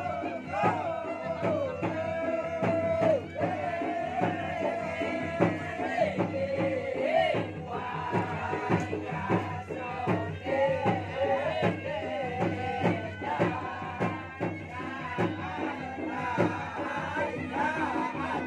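Traditional Makassarese gendang music: two drums beating quick, dense strokes under a held, wavering melody line.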